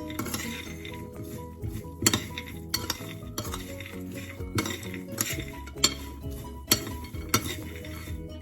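A spoon stirring roasted peanuts in a bowl, with sharp clinks of the spoon against the bowl every half second to a second. Background music runs underneath.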